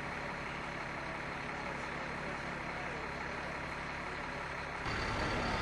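Steady outdoor background noise with a low engine hum like an idling vehicle. About five seconds in the sound changes abruptly, with a cut to louder street noise.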